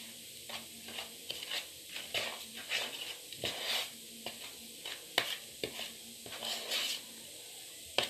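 Margarine and onion cream being mixed by hand in a bowl: a run of short, irregular wet strokes, about two or three a second.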